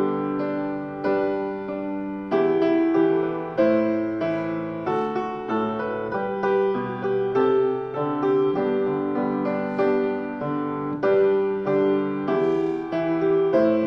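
Solo piano playing a slow piece in chords, each new chord struck about every second and left to ring, as offertory music.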